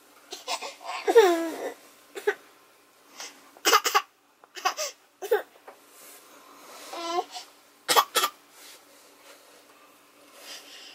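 Eleven-month-old baby fussing in her crib: a few short whiny cries and squeals, with short sharp catches of breath between them.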